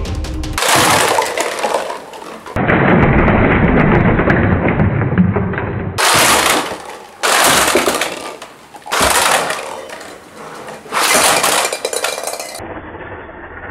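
Toy cars crashing into stacked hollow plastic pumpkin buckets, which tumble and clatter across a wooden floor in several loud crashing bursts.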